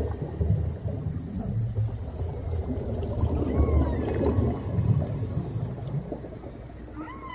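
Whale song recorded underwater: a deep, rumbling wash of water noise with a few gliding calls, one falling call about halfway through and a stronger call near the end that sweeps up and then holds.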